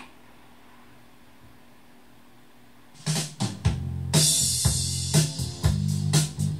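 Cassette playback on a Yamaha KX-R430 deck: a low steady hiss for about three seconds, then a rock song with a drum kit and guitar comes in and plays on at full level.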